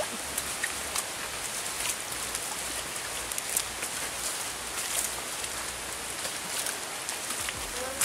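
Light rain pattering on rainforest leaves: a steady hiss with many small scattered ticks.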